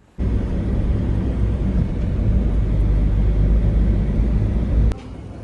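Loud, steady low rumble of a moving vehicle. It starts suddenly and cuts off sharply just before the end.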